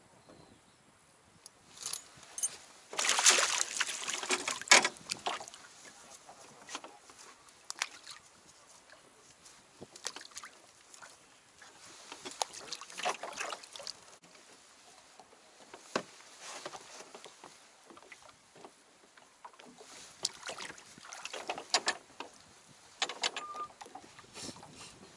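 Scattered knocks, clatter and rustling aboard a small hand-rowed boat as fishing gear is handled, coming in bursts with the loudest cluster about three to five seconds in.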